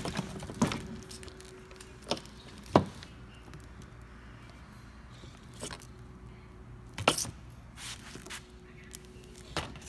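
An engine wiring harness being handled on a workbench covered in plastic sheeting: a scattering of short knocks and clicks as its connectors and corrugated loom tap and drag on the surface, over a faint steady hum.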